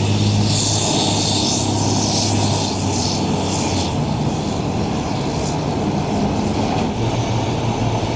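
Diesel engine of a tandem-axle tractor-drawn tiller aerial ladder fire truck running steadily as the truck pulls away and turns, with a hiss over the first few seconds.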